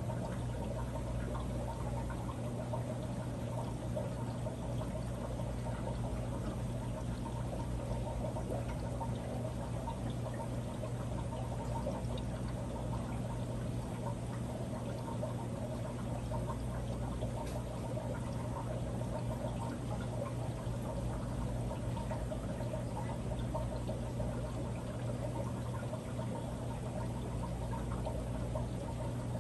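Steady trickle of water running into an aquarium, as from a filter return, with a low steady hum underneath.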